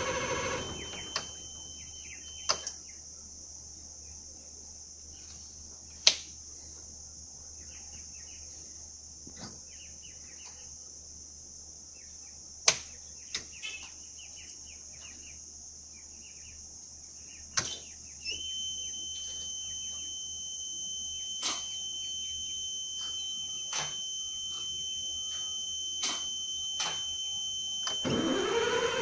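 A Dennis Trident bus's starter motor stops cranking about a second in without the engine catching, a sign of hard starting. In the pause, sharp clicks sound every few seconds, and a steady high-pitched tone comes on about two-thirds of the way through. Near the end the starter motor engages again and spins up.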